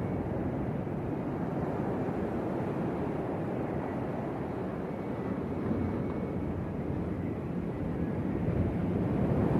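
Sea surf making a steady, continuous rumble, with wind buffeting the microphone; it swells a little near the end.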